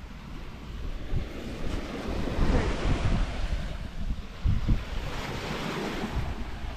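Wind buffeting the microphone over surf washing onto a beach, the wash of the waves swelling twice.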